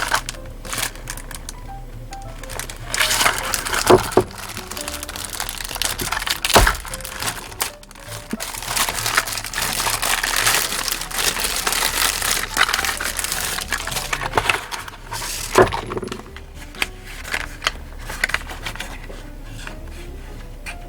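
Background music over close handling noises: clicks, knocks and crinkling, with three sharp knocks standing out and a busier stretch of rustling in the middle.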